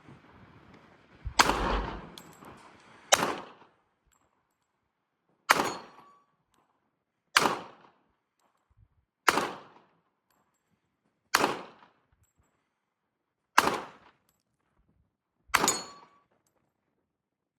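Colt 1911 Government model .45 ACP pistol fired eight times in slow, deliberate succession, about two seconds apart, each shot a loud sharp crack with a brief echo. The first shot has the longest ring-out.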